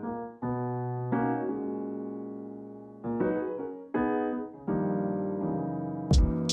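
Background music: piano chords, held and changing every second or so, with drum and cymbal hits coming in near the end.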